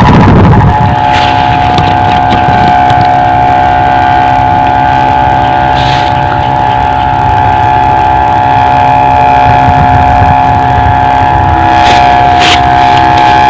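Kite hummer (sendaren) of the 'ngorok' snoring type droning as the kite flies: one loud steady humming tone with fainter overtones, held without a break, while wind rumbles on the microphone.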